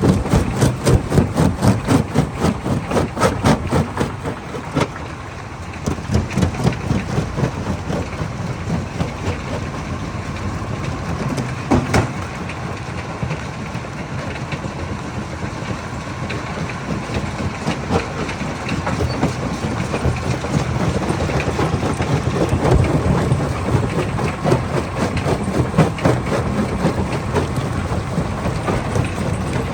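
Hammer crusher running and breaking rock: a continuous rapid clatter and banging of stone against the hammers. Heavy knocks in the first few seconds, a steadier clatter after that, and one sharp crack about twelve seconds in.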